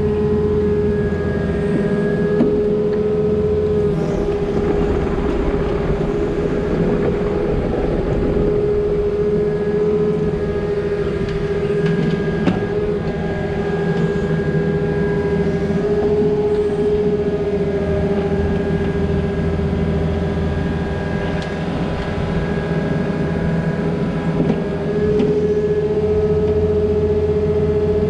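Compact diesel earthmoving machine running steadily, with a strong steady whine over the engine rumble and a few faint knocks.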